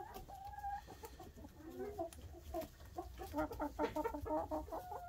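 Chickens clucking and calling, with a drawn-out call at the start and a quick run of short clucks about three and a half seconds in.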